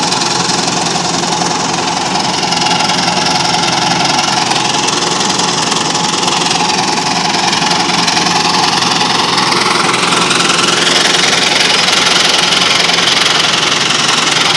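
An engine running steadily at constant speed, with no change in pace.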